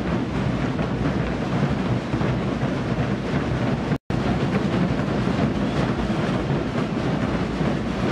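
Zés Pereiras bass drums (bombos), many beaten together in a dense, continuous pounding. The sound drops out for a split second about halfway through, then carries on.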